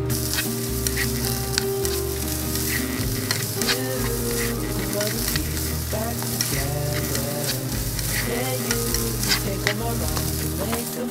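Mixed vegetables (peas, diced carrots and corn) sizzling in a nonstick frying pan, stirred with a slotted turner that clicks and scrapes against the pan again and again.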